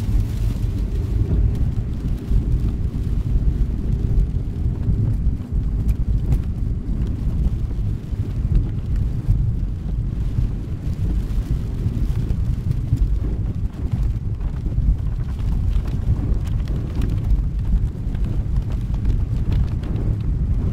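Car driving along a wet country lane, heard from inside the cabin: a steady low rumble of engine and tyres on the wet road surface.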